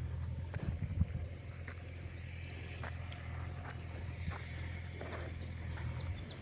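Small birds chirping, short high calls repeated many times, over a steady low rumble, with a few scattered clicks.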